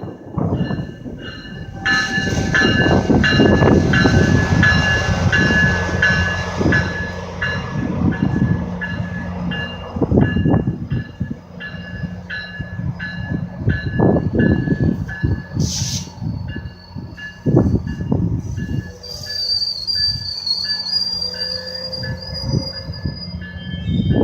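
GO Transit diesel commuter train moving through a station: the locomotive engine drones steadily under a regular clatter of wheels, with high ringing tones strongest over the first several seconds.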